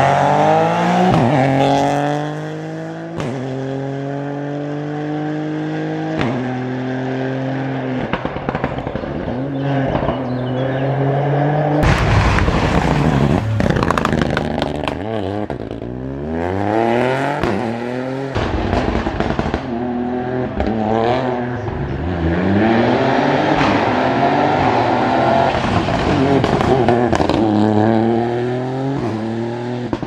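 Ford Fiesta Rally3 cars taking a tight corner one after another, their turbocharged three-cylinder engines revving hard. Each car's revs climb in steps through quick gear changes as it accelerates away.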